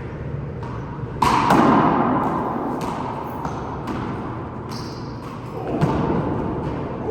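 Handball rally: a series of sharp thuds from the rubber ball striking the court walls and players' hands. About a second in there is a sudden louder smack that rings on in the court.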